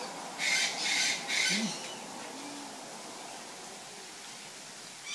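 Blue-and-gold macaw giving three harsh squawks in quick succession, about half a second to a second and a half in.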